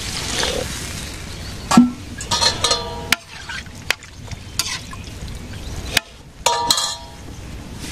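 A cooking utensil stirring and knocking in a pan of frying food: a sizzle fades at the start, then come several sharp knocks and two short metallic rings.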